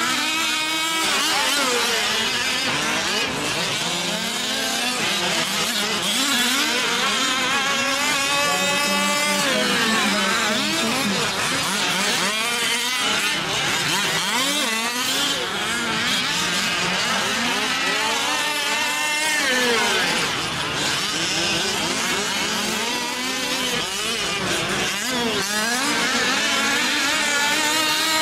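Several 1/5-scale RC race trucks running together, their small two-stroke gas engines revving up and down over one another.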